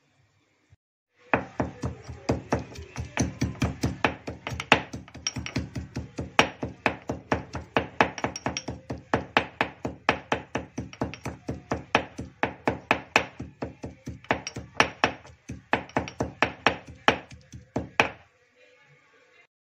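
Garlic being pounded with a pestle in a stone mortar: steady, even knocks, about three a second, starting about a second in and stopping near the end.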